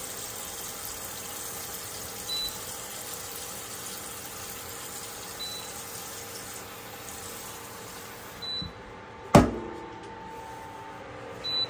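A kitchen faucet runs into a large copper-coloured square pan, filling it with water, until about eight and a half seconds in. Then comes a single sharp knock, the loudest sound. A short high beep sounds about every three seconds, the kind an induction cooktop gives when it is switched on with no pan on it.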